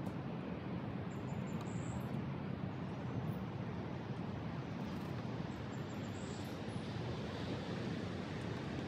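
Steady rushing of the fast, flooded Merced River, an even roar without a break.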